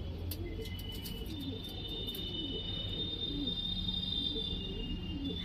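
Domestic pigeons cooing: low, wavering coos repeated one after another. A thin, steady high tone runs over them from about a second in.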